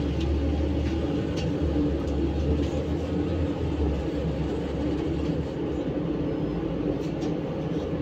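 A ZiU-682V trolleybus running, heard from inside the cabin by the doors: a steady low hum and rumble with a few faint clicks. The hum eases a little about five seconds in.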